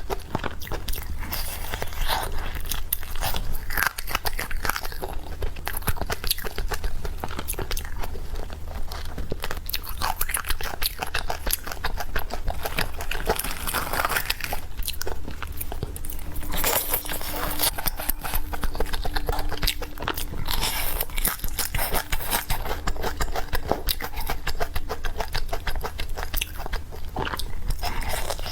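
Close-miked eating of chicken: biting and crunchy chewing in a dense, unbroken stream of crisp clicks, over a steady low hum.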